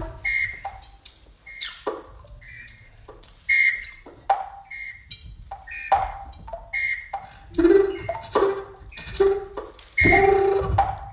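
A string of short electronic beeps and blips at several pitches, irregularly spaced, some dropping in pitch, with clicks between them. About ten seconds in comes a louder low thump together with a tone.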